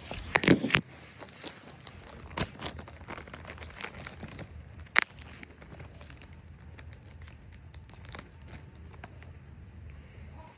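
Plastic lure packaging crinkling and being torn open. It is loudest in the first second, with scattered crackles after, one sharp snap about five seconds in, and quieter handling later.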